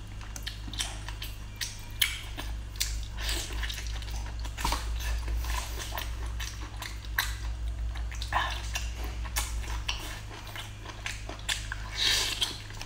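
Close-up eating sounds of large sea snail (conch) meat being pulled from its shell, bitten and chewed: irregular wet smacks, squelches and clicks, over a steady low hum.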